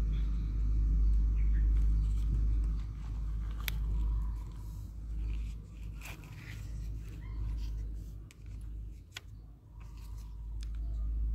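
Plastic toy excavator bucket scraping and scooping through dry wood shavings and chips, with crunching and a few sharp clicks, over a steady low rumble.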